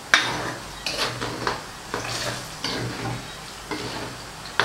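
A ladle knocking and scraping against a steel wok while stirring chopped garlic frying in hot chicken oil, over a steady sizzle. A loud knock comes just after the start, followed by about six lighter taps and scrapes.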